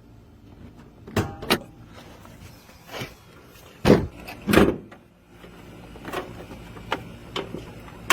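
A car's trunk and door being handled: a series of clunks and latch clicks. Two sharp knocks come about a second in, the two loudest thuds around the middle, and lighter clicks near the end.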